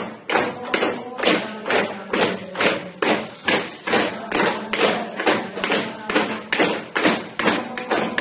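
A team war cry: a steady beat of thumps from the group stamping or slapping, about two and a half a second, with the boys' voices over it.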